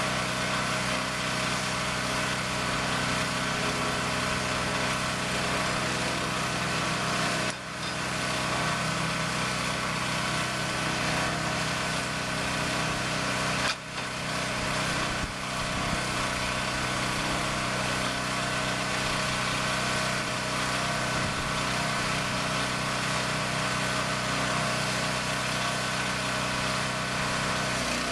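An engine on a container-delivery truck rig running steadily at a constant speed, dipping briefly twice.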